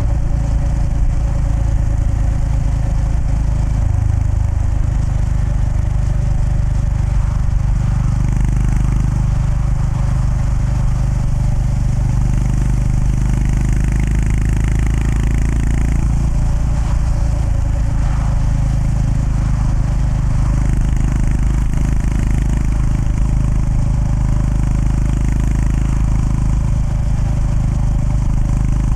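Honda GB350S's air-cooled single-cylinder engine running steadily under way, heard from the rider's seat, with its pitch shifting slightly a few times. An even hiss of wind and road noise lies under it.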